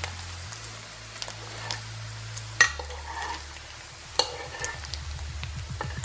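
Sausage slices sizzling in a nonstick frying pan as a metal spoon stirs and pushes them around, with sharp clinks of the spoon against the pan, the loudest about two and a half seconds in and another about four seconds in.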